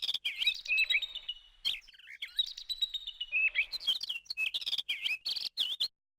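Birds chirping and twittering in quick, bending calls, which stop abruptly near the end.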